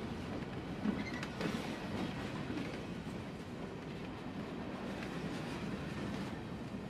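Empty covered hopper cars of a grain train rolling past, steel wheels rumbling steadily on the rails, with a couple of sharp clicks about a second in.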